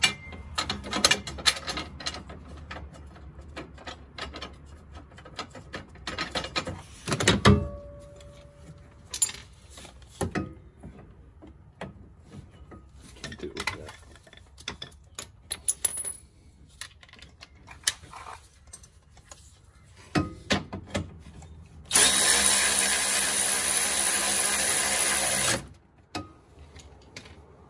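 Scattered metal clicks and clinks of bolts and tools being handled, then, about 22 seconds in, a Milwaukee M12 cordless 3/8-inch ratchet runs steadily for about four seconds, spinning down a bolt on the front sway bar brace.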